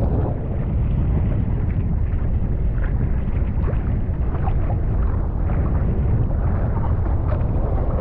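Wind buffeting the microphone over a steady low rumble of water rushing and sloshing against a camera at the water's surface, with small splashes throughout.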